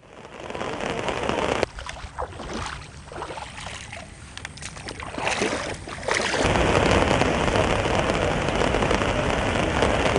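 Rushing floodwater of a swollen river, a steady noisy rush. It drops to a quieter, more uneven stretch from about two to six seconds in, then comes back louder and steadier.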